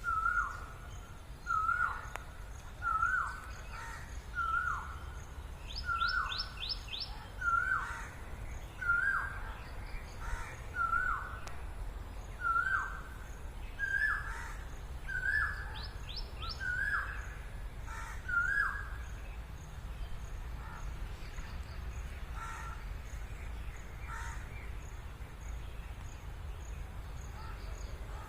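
A peacock calling over and over, about fourteen short calls roughly a second and a half apart, each dropping in pitch at its end. The calls stop about two-thirds of the way through, leaving only faint calls over steady outdoor background noise.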